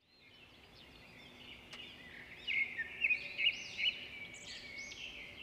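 Several small birds chirping and twittering, their calls overlapping and fading in at the start. A few sharper, louder chirps come between about two and a half and four seconds in.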